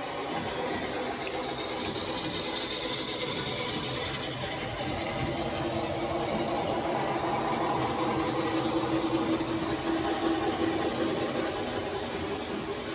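HO scale model trains running on the layout track: a steady rolling rumble of wheels on rail with a motor hum, growing louder in the second half as a steam locomotive and its cars pass close by.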